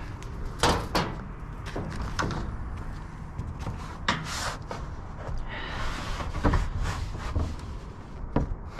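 Rummaging through dumpster contents: scattered knocks and clunks of items being shifted, with a scraping rustle about four seconds in and a longer one a little later.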